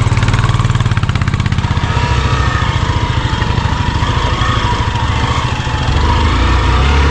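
Single-cylinder Hero XPulse 200 trail motorcycle engine pulling at low revs on a steep, rough off-road section, its note dipping briefly about five and a half seconds in and then picking up.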